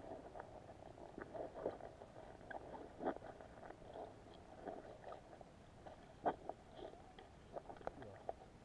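Faint, muffled underwater knocks and clicks, irregular and scattered, the loudest about three seconds in and again past six seconds, as picked up by an action camera sealed in its waterproof case, which lets almost no sound through.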